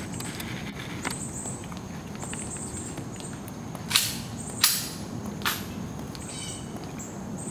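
Tomb guards' metal-tapped shoes striking the wet stone plaza in a slow march: three sharp clicks about four to five and a half seconds in, under a steady background hiss and high chirping calls.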